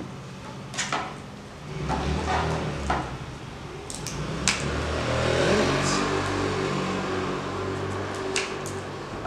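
Thin laser-cut wooden slats being pushed into the notches of a wooden lamp ring. From about two seconds in there is a low creaking rub of wood on wood, with several sharp clicks along the way: the click that tells a slat has gone all the way to its last notch.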